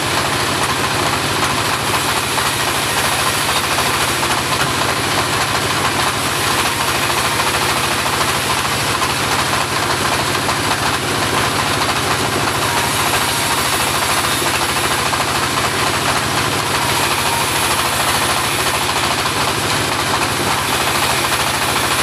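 Homemade portable bandsaw sawmill running steadily under its engine, with a rapid even low pulse and a broad mechanical rush that doesn't change.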